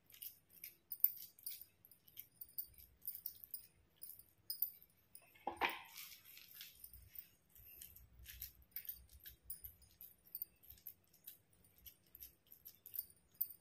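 Faint clicking and light jingling of bangles as hands press mashed potato filling into capsicum rings, with one brief scrape about six seconds in as fingers scoop filling from a steel bowl.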